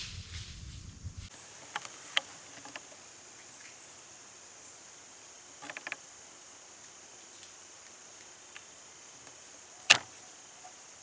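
Quiet woods with a steady high insect hum, scattered small clicks and ticks, and one sharp click about ten seconds in.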